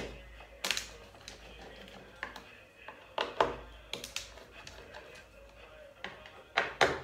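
Irregular clicks and knocks from snowboard bindings being unscrewed and handled on the board, plastic and metal parts tapping, with the loudest pair of knocks near the end.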